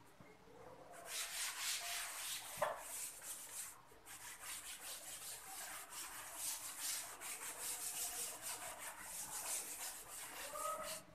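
Cloth duster wiping chalk off a blackboard: a scratchy rubbing made of rapid back-and-forth strokes, broken by a short pause about four seconds in.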